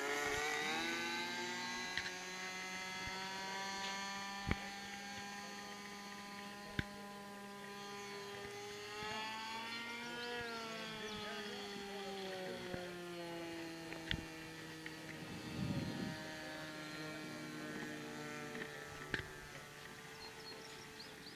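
Engine of a 40-size radio-controlled P-51D Mustang model plane in flight, droning steadily overhead. Its pitch rises about halfway through and then slides down over a few seconds as the plane passes, and the sound fades toward the end, with a few sharp clicks along the way.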